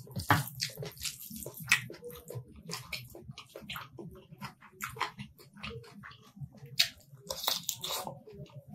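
Close-miked chewing and wet mouth smacking from someone eating rice and chicken curry by hand: a dense run of short irregular clicks and squelches over a low murmur, with a louder, longer wet sound near the end.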